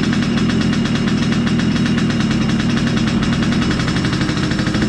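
Yamaha RX-King's two-stroke single-cylinder engine running steadily with a fast, even pulsing exhaust beat, while its carburettor is being set for a growling 'ngorok' tone.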